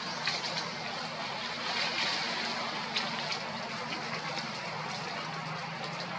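Steady outdoor background noise: an even hiss with a low steady hum underneath and a few faint clicks.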